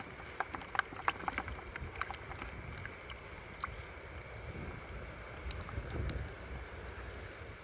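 Wind gusting on the microphone, with low rumbles building about five and a half seconds in. Underneath is a steady high hiss and scattered sharp clicks and small splashes of water in a flooded rice paddy.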